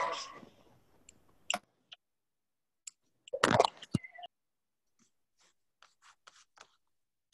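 Scattered faint clicks and rustles of handling noise coming through a video call. About three and a half seconds in there is a louder scuffle that ends in a sharp knock, and near the end a quick run of soft ticks.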